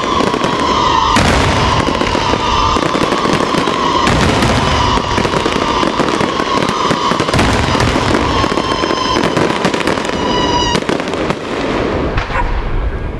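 Daytime aerial fireworks barrage: shells bursting in rapid succession with dense crackling and bangs, and a steady whistle running through it that stops about eleven seconds in.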